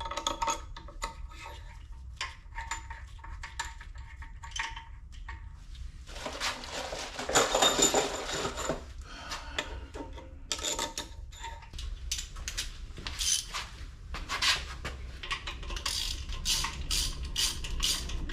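Metal clinks and rubbing from head bolts and hand tools being handled at a Cadillac Northstar V8 engine, with scattered short clicks and a denser stretch of scraping about midway.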